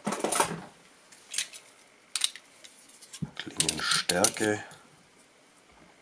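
Metallic clicks and clinks of a steel digital caliper being handled and its jaws set against a folding knife's blade: a quick cluster of clicks at the start, then single taps about a second apart.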